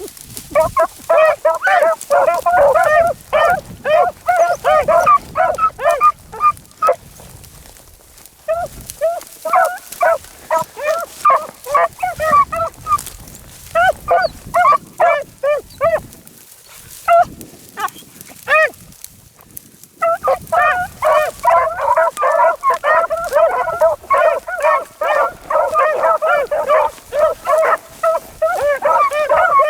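A pack of beagles baying in chorus while running a rabbit's track, many voices overlapping. The chorus thins out and breaks off briefly a few times, then the full pack opens up again about two-thirds of the way through.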